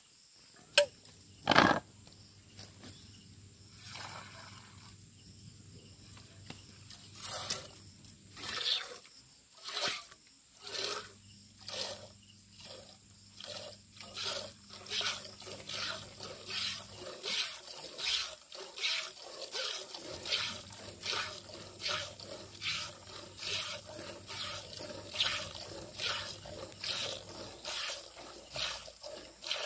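Hand-milking a cow into a steel tumbler: jets of milk hiss into the metal cup in a steady rhythm of roughly one to two squirts a second, settling into a regular pace about seven seconds in. A couple of sharp knocks come near the start.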